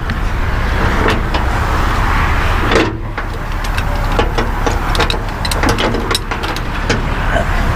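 Steady rumble of a heavy diesel truck engine idling with road traffic, with a few sharp knocks and clinks, the strongest about three seconds in.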